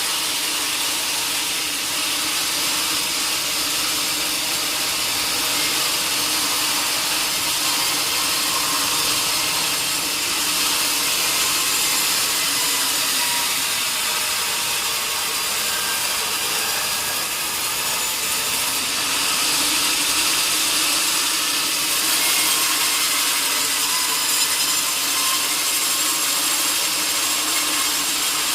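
Sawmill saw cutting lengthwise through a large log, a steady loud noise of the blade in the wood over a humming tone that drops in pitch about halfway through and rises again.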